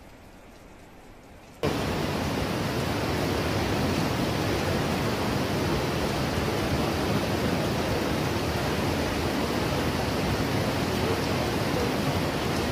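Faint hiss of rain, then, cutting in suddenly about one and a half seconds in, the loud steady rushing of the swollen, muddy Bhagirathi river in spate, with rain falling.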